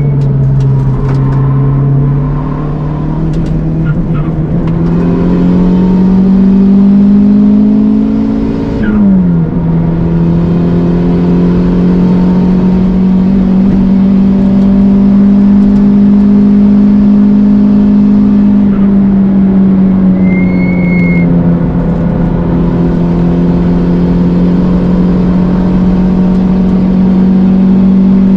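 Toyota Starlet Glanza V's turbocharged 1.3-litre four-cylinder engine at full throttle, climbing steadily in pitch, then dropping sharply at a gear change about nine seconds in. After that it holds high, nearly steady revs, eases briefly near twenty seconds and pulls again.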